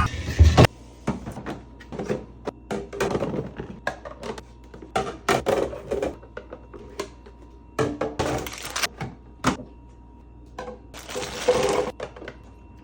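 Irregular knocks, clatter and scraping of containers and items being handled and set down while a refrigerator is cleaned and stocked with new organizer bins.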